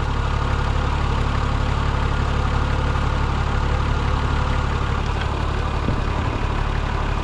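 Four-wheel-drive vehicle's engine running steadily, an even low drone with no revving.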